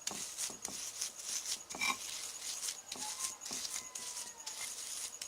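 A pestle grinding a spice paste in a mortar (ulekan and cobek), in quick repeated scraping strokes, about three or four a second.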